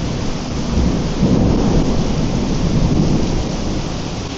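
Heavy monsoon downpour drumming steadily on an umbrella held overhead, a loud dense rain noise with a deep low end.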